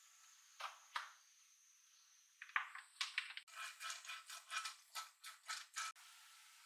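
Two light clicks, then a quick run of clattering clicks and rattles from about two and a half seconds in until shortly before the end.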